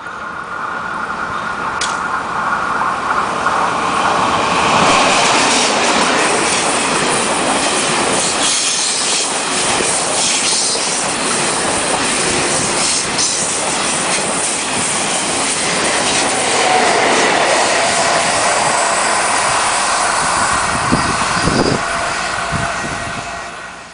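Taiwan Railways E1000 push-pull Tze-Chiang express running through the station at speed. The rush of wheels on rail builds over the first few seconds, stays loud as the coaches pass, and fades near the end, with a faint wheel squeal partway through.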